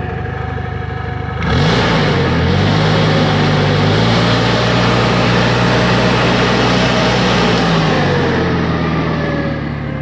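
Toyota forklift engine revved from idle by the accelerator pedal. About a second and a half in it climbs quickly, holds at high revs for several seconds, then drops back to idle near the end. The rev is a test after the gas regulator's knob was closed a little to cure a rough idle.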